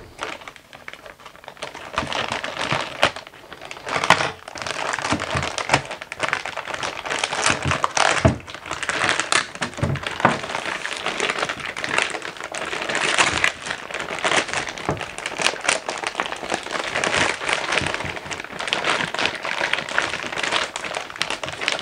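Clear plastic packaging bag crinkling and rustling as it is handled and pulled open around a new electronic unit, with scattered sharp clicks and knocks.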